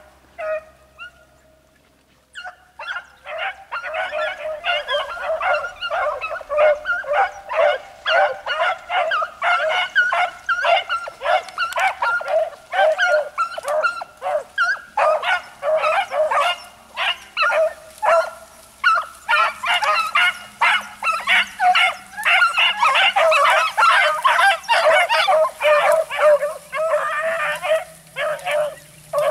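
A pack of beagles in full cry: many hounds baying and yelping at once in a dense, overlapping chorus that starts about two seconds in. This is the sound of the hounds giving voice as they run a scent line in a chase. Within it, one hound has a scratchy voice and another a high-pitched one.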